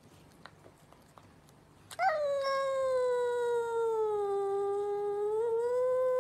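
A cat's long, drawn-out yowl that starts suddenly about two seconds in. It holds one steady pitch for several seconds, sagging a little in the middle and rising again.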